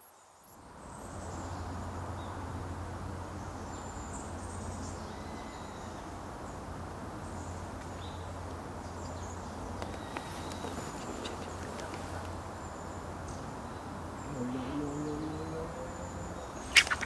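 Steady outdoor background noise by a pond, with faint high insect or bird chirps scattered through it. A short rising pitched sound comes near the end, followed by a few sharp clicks.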